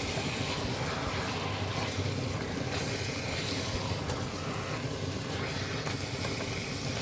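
Chicken livers frying in a pan: a steady sizzle.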